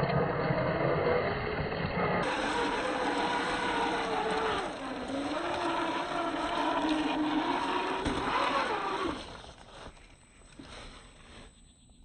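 Electric motor and gears of a Boom Racing BRX01 1/10 scale RC crawler whining, the pitch rising and falling with the throttle, then dropping away about nine seconds in.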